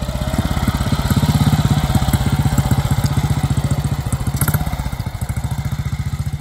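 1943 BSA WM20 motorcycle's side-valve single-cylinder engine running at low speed as the bike rides past, an even beat of exhaust pulses that swells and then eases off as it moves away.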